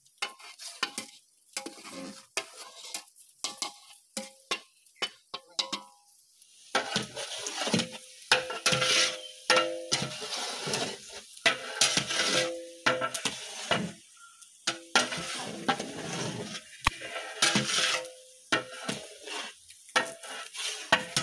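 Long metal spatula scraping and clinking against the inside of a large metal cooking pot as onions and tomatoes are stirred in hot oil, with a light frying sizzle. The strokes repeat unevenly and the pot rings faintly at each knock. The stirring gets busier and louder about six seconds in.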